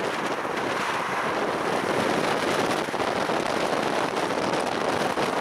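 Wind blowing, a loud, steady rushing noise with a light crackle through it.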